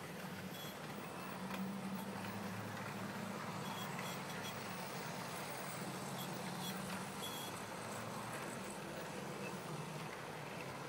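OO gauge model train running on its track, its small electric motor humming steadily, with light clicks and rattle from the wheels on the rails.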